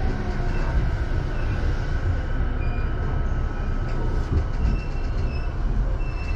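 Passenger train running noise heard from inside the carriage as it pulls slowly into a station: a steady low rumble of wheels on rail, with faint thin high-pitched squeals in the second half as it brakes toward a stop.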